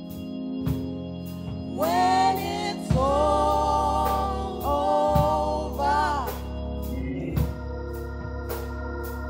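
Gospel singing: women's voices come in about two seconds in and hold long notes until about six seconds in, over held keyboard chords and a steady beat.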